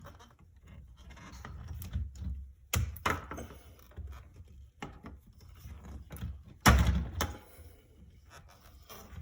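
Knocks, clicks and rubbing from a vinyl plantation shutter louver being handled as pieces of a broken plastic tilt-rod clip are worked loose and pulled out. There are several sharp knocks, the loudest about two-thirds of the way in.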